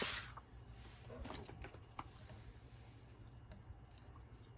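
Faint rustling of paper being handled, with a few light taps and ticks. A short scraping sound dies away at the very start.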